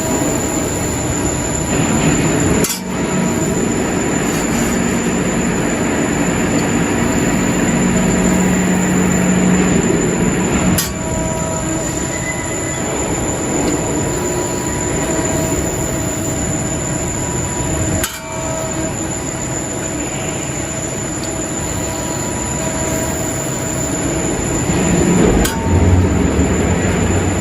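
Steady machine-shop noise from a running CNC press brake: a continuous mechanical hum and hiss with a few faint steady whines, broken by abrupt cuts about every seven or eight seconds.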